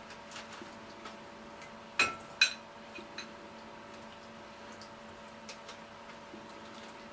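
Kitchen utensils clinking on cookware: two sharp ringing clinks about two seconds in, half a second apart, among light scattered taps, over a steady hum.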